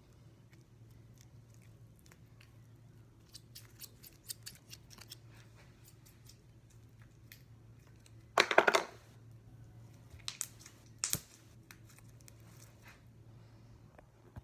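Slime being squeezed and worked by hand, giving scattered small sticky crackles and pops. One much louder burst about half a second long comes a little past halfway, followed by a few sharp pops.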